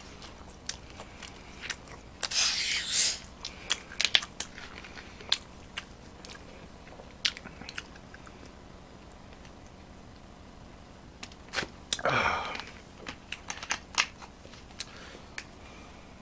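A plastic Coca-Cola bottle is twisted open, with a hiss of escaping carbonation lasting about a second, about two seconds in. Scattered clicks and crinkles follow as the bottle is handled and drunk from. A second short rush of breath-like noise comes about twelve seconds in.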